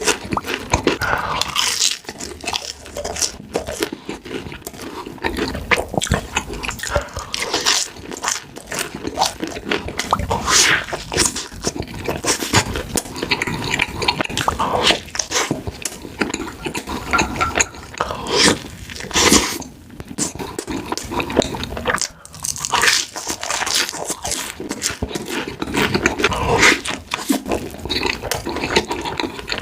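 Close-miked eating: continuous chewing of fast food, with frequent irregular crunches and clicks.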